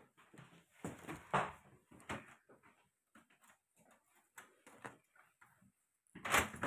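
Footsteps and handling knocks in a hallway, in short irregular bursts. Near the end a uPVC front door is opened, with a sudden louder rush of sound as it swings open.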